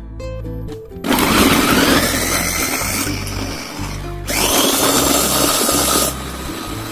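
Electric countertop blender chopping whole tomatoes into a purée. It runs in two bursts, starting about a second in, with a short stop near the middle. Each time it starts, the motor whine rises in pitch as it speeds up.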